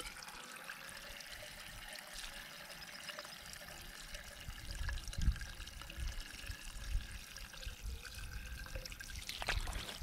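Water trickling out of the end of a hose at a tree's base, fed by gravity from an IBC tank that is running empty, so the flow is weak. A few low thumps come through underneath.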